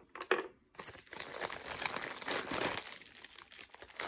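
Clear plastic packaging bag crinkling as it is handled, with a small packaged power adapter inside.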